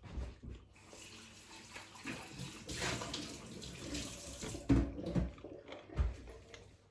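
Water running from a tap into a sink for a few seconds, then stopping, with a few dull knocks near the end.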